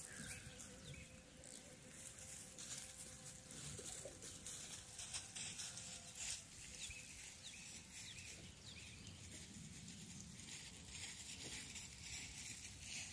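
Faint rural outdoor ambience, with a few faint, short high chirps between about three and six seconds in.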